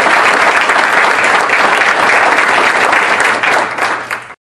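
Audience applauding steadily, then fading briefly and cutting off abruptly near the end.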